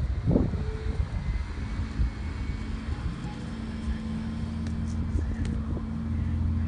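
A steady low engine drone, growing slightly louder, over a low rumble, with a single thump just after the start.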